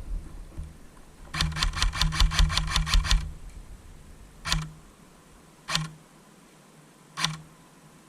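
Airsoft gun firing: a fast string of about a dozen shots lasting under two seconds, then three single shots spaced more than a second apart.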